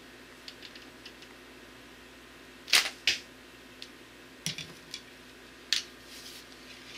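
A traditional bow shot: two sharp cracks about a third of a second apart, the bowstring released and the arrow striking the target. Lighter clicks and knocks come before and after.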